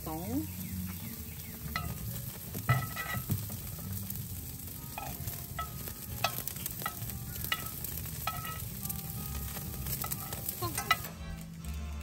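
Steak and shrimp sizzling on a hot barbecue grill, a steady crackling hiss with scattered light clicks.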